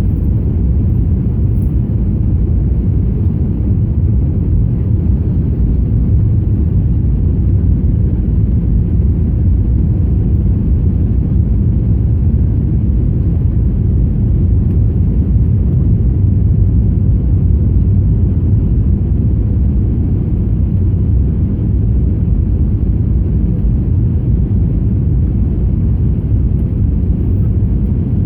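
Airbus A321 cabin noise in flight: a steady, loud, low rumble of the jet engines and airflow, heard from inside the passenger cabin, unchanging throughout.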